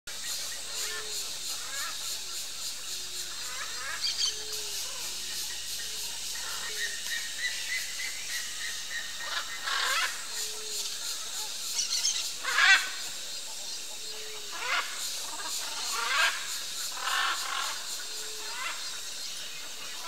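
Wild birds calling in woodland: short low notes repeating about once a second, and several louder, sharper calls, the loudest a little past halfway, over a steady high hiss.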